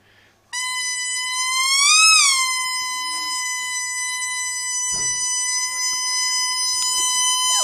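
A toy squeaker sounding one long, steady, high note. It swells and rises in pitch about two seconds in, then settles back.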